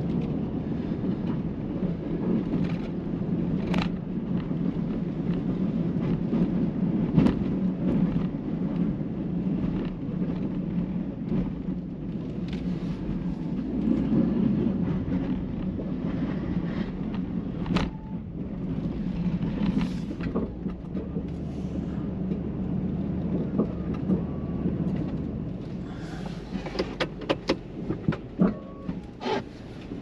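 2019 Ford F-250's 6.2-litre gas V8 running steadily as the truck pushes snow with a Boss DXT V-plow. Scattered knocks and scrapes from the plow sound over it, coming thick near the end.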